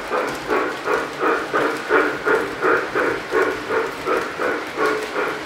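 Model Southern Pacific 2-8-0 steam locomotive's onboard sound system chuffing steadily, about three even puffs a second, as the engine pulls its train.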